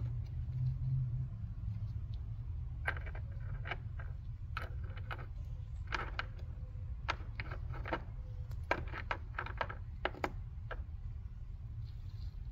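Small loose metal parts from a battery-terminal repair kit, bolts, nuts and wedge pieces, clicking and clinking as they are handled and sorted. The clicks are scattered and come in short runs, over a steady low hum.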